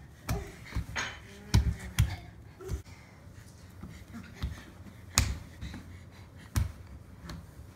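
A crawling baby's bare hands slapping and patting a hardwood floor: irregular sharp slaps, the loudest four about two seconds in, at five seconds and near the end.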